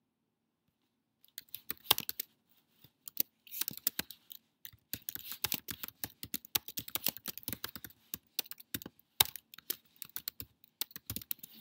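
Typing on a computer keyboard: quick runs of key clicks begin about a second in and go on with short pauses.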